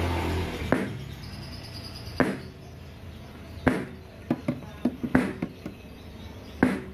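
Sharp test clicks played through a PA speaker cabinet's woofers, the loudest coming about every second and a half with smaller clicks between them, as the speakers are checked with a handheld tester. A low hum cuts off less than a second in.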